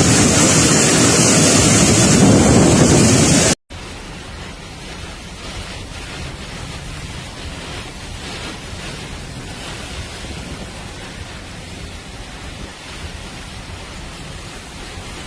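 Cyclone wind and heavy rain rushing, loud with wind buffeting the microphone, then cutting off abruptly about three and a half seconds in to a quieter, steady rush of wind and rain.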